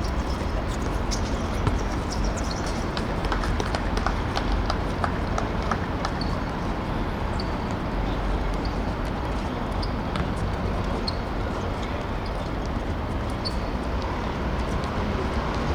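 Seven-a-side football in play on a hard pitch: scattered light clicks and knocks of players' footsteps and ball touches, more frequent in the first few seconds, over a steady low rumble.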